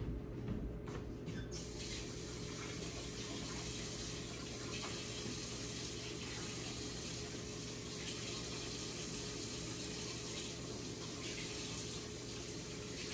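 Water running from a faucet into a sink, turned on about a second and a half in and running steadily, as a water-test vial is rinsed and scrubbed out. A steady low hum lies underneath.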